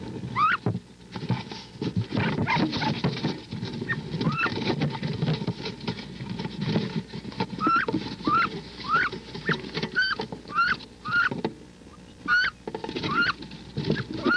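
Wood duck hens calling with short rising squeals, roughly one a second, over rustling and knocking inside a wooden nest box, the sound of two hens fighting over the same clutch.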